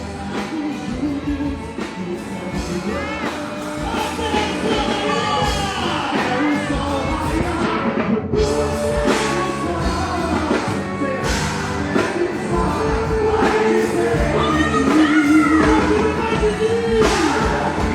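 Music with a singer over a steady beat.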